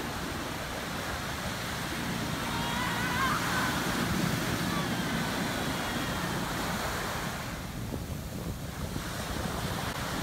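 Ocean surf breaking and washing up a sandy beach in a steady rush of water, with wind on the microphone.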